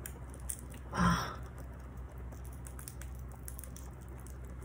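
Faint crackling of a crispy fried shrimp-and-pork spring roll wrapper as it is pulled apart by hand, over a low steady hum, with one short breathy sound about a second in.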